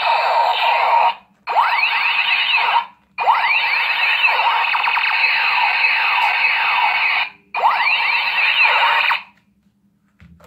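Toy gun's electronic sound effect: dense overlapping sweeping laser-and-siren tones, played in four bursts with short breaks between them, the longest about four seconds. It stops after about nine seconds.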